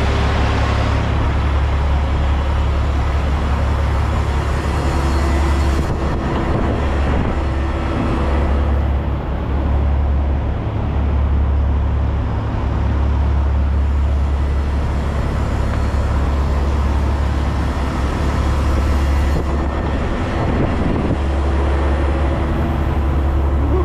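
Cat 730 articulated dump truck's diesel engine idling steadily, a constant low drone heard close up from the machine.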